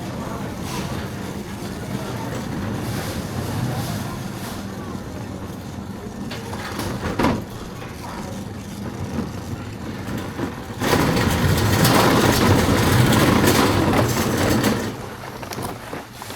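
Busy warehouse-store ambience: a steady background hum and distant shoppers' voices. About eleven seconds in, a loud rushing noise starts, lasts about four seconds, then falls away.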